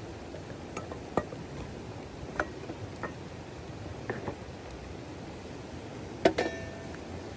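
Steady rain hiss with a series of light clinks and knocks of dishes or cookware being handled, about eight in all; the loudest, about six seconds in, rings briefly like metal or glass.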